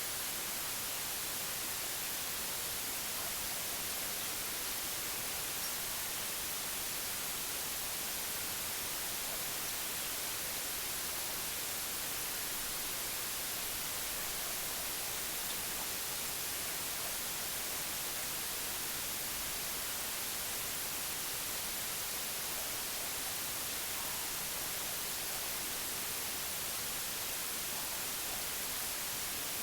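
Steady white noise: an even hiss, brighter in the highs, at an unchanging level.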